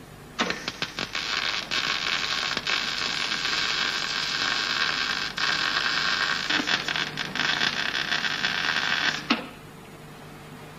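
MIG/MAG welding arc on thin car-body sheet steel. It starts with a few short stuttering strikes, then runs as a steady crackling hiss with brief breaks and cuts off about nine seconds in.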